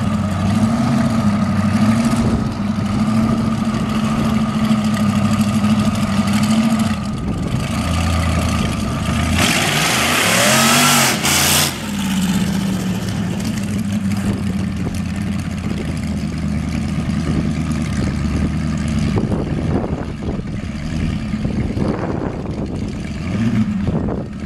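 Supercharged front-engine dragster's engine running with a steady low note, then a loud burst of throttle about ten seconds in as it passes, its pitch rising and falling, before it drops back to a steadier running note.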